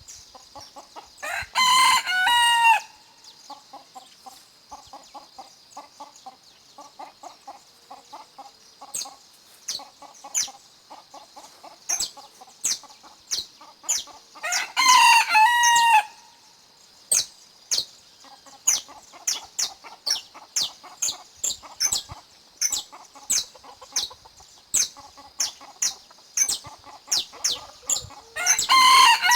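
A rooster crowing three times, about every thirteen seconds. Between the crows, chickens cluck and small birds give short, sharp chirps.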